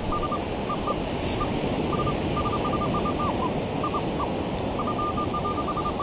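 Minelab Manticore metal detector giving a string of short high beeps at irregular intervals, some bending slightly in pitch, as it passes over buried targets, over steady surf and wind noise.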